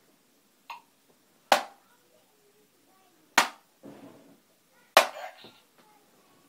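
Three darts hitting an electronic dartboard one after another, about two seconds apart, each a sharp impact with a short rattle after it.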